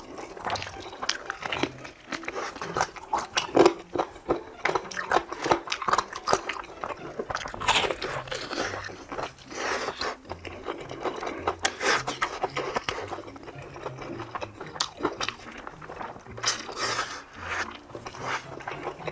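Close-up crunching and chewing of crispy fried chicken: bites that crackle sharply and irregularly, over and over.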